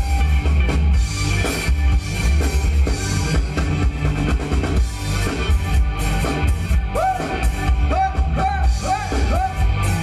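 Live Thai ramwong dance band playing, with a steady drum-kit and bass beat. About seven seconds in, a melody of short arching notes comes in, about two a second.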